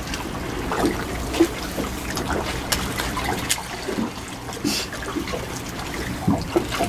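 Water lapping and trickling against the hull of a small boat, with irregular small splashes and a few sharp clicks over a steady low rumble.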